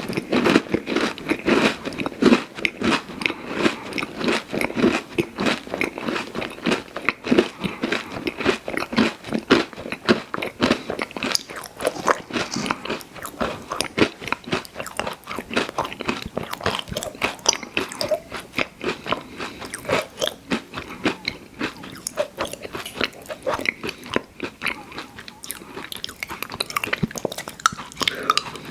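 Close-miked chewing and crunching of candy sweets, a dense run of crisp crackles and bites that keeps going without a break.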